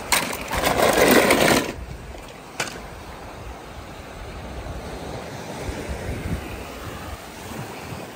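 Surf washing on a beach, with wind buffeting the microphone in a low rumble. A loud rushing noise lasts for the first second and a half, and a single short click comes a little later.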